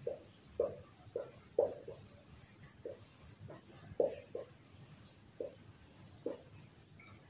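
Marker pen writing on a whiteboard: about ten short, irregularly spaced strokes as a word is written out.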